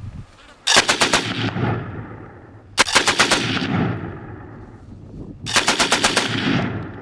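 Automatic firearm firing three short bursts, each of several rapid shots, with echo trailing off after each burst.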